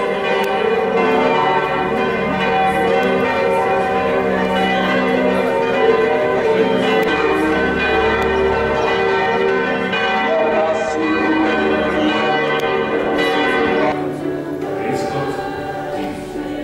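Church bells ringing, several bells sounding together in a continuous peal that grows a little quieter near the end.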